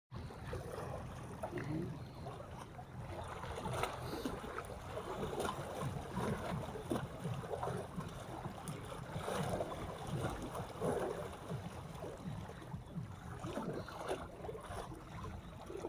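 Small waves lapping and sloshing against shoreline rocks, an irregular run of soft splashes.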